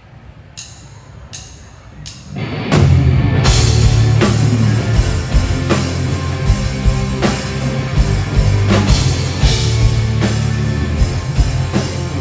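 A live rock band starting a song: three sharp drumstick clicks count it in, then drums and electric guitar come in together about two and a half seconds in and keep playing at full volume.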